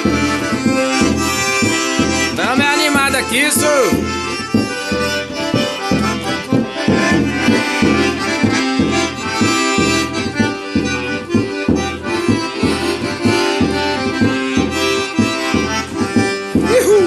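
Accordion (sanfona) playing a tune: held chords and melody over a steady, pulsing bass rhythm.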